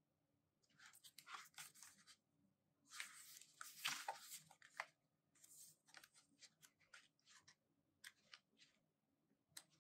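Pages of a thick paperback photo booklet being turned and riffled: soft paper rustles and flicks, with a longer burst of fanning pages about three seconds in, then single page flicks.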